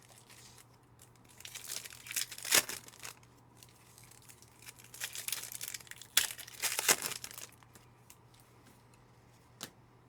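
Foil trading card packs being torn open and the wrappers crinkled, in two bouts of rustling a few seconds each, with a single click near the end.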